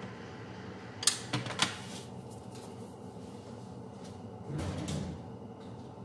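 A wooden spoon knocked against a stainless-steel frying pan: three sharp knocks about a second in, then a softer, duller knock a few seconds later.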